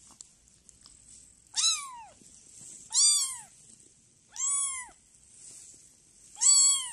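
Young kitten mewing: four short, high mews about a second and a half apart, each rising and then falling in pitch.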